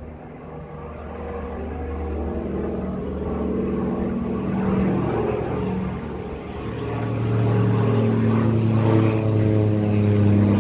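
Propeller-driven firefighting planes flying low overhead: a steady engine drone that swells, eases briefly, then grows loudest near the end, its pitch falling as a plane passes.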